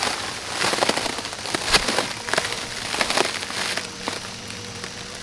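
Plastic wrap crinkling and crackling under a person's weight as he shifts and settles into a hammock made of it; dense at first, thinning out after about three seconds.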